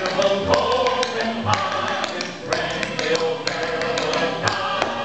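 Tap shoes striking a hardwood floor in a series of sharp taps, dancing a waltz clog routine, over recorded waltz music.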